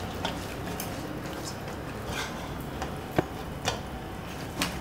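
Scattered light clicks and taps of kitchen utensils and dishes being handled, irregular, about one a second or less, over a low steady hum.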